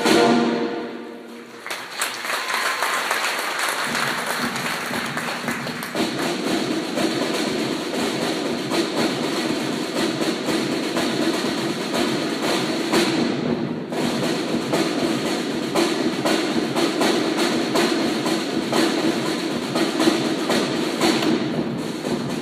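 A brass band chord ends at the start and rings off in the hall. Then a marching band's drum line takes over with a fast, unbroken percussion feature: rope-tension side drums, bass drum and cymbals.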